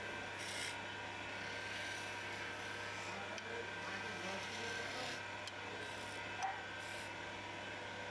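Wood lathe running while a hand-held turning tool cuts a spinning wooden spindle: a steady scraping, rubbing hiss of steel on wood over the lathe's steady hum, with one short knock about six and a half seconds in.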